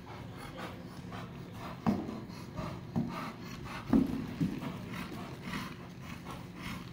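A horse's hooves stepping across a wooden pallet, four hollow wooden knocks a second or less apart, the loudest about four seconds in, between softer hoofbeats in sand.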